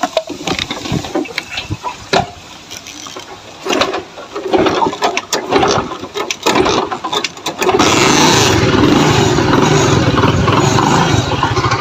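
Honda motorcycle being kick-started: clicks and short rattling bursts from the kicks, then about eight seconds in the engine catches and runs steadily.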